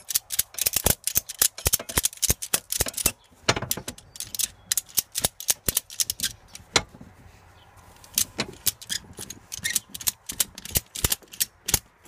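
Hand ratchet buckle of a ratchet tie-down strap being cranked, its pawl clicking in runs of quick clicks as the webbing is drawn tight, with a short pause a little past the middle.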